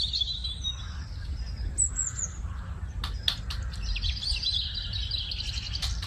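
Small birds chirping, with a quick run of high chirps about four to six seconds in, over a steady low rumble. A few sharp clicks come about three seconds in.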